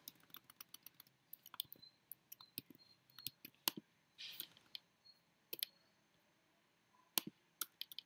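Faint, irregular clicking of a computer keyboard and mouse during text editing: scattered single clicks and short runs of keystrokes, with a brief lull about two thirds of the way through.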